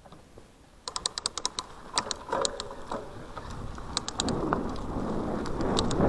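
A run of sharp, irregular clicks and ticks, then from about four seconds in a steadily growing rumble of a Cube Stereo mountain bike's tyres rolling down a dirt trail, with wind on the microphone.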